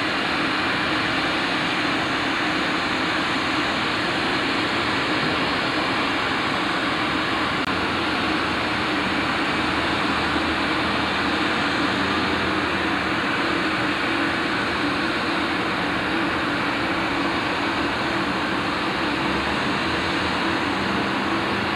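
Steady jet noise from a Boeing 747-230B freighter on the airport ramp: an even rushing hiss over a low steady hum.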